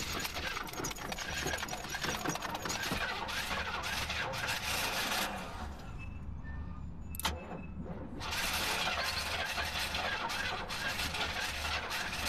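Starter motor cranking an old car's engine in two long bursts, with a pause and a sharp click between them. The engine does not catch: the battery is weak from the car sitting, and it may also be out of gas.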